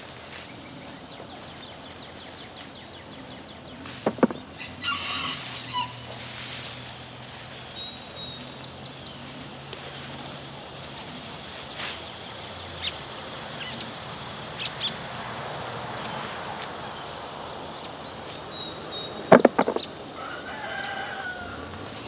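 Rooster crowing and chickens clucking in the background over a steady high-pitched drone, with a sharp cluster of knocks about three seconds before the end.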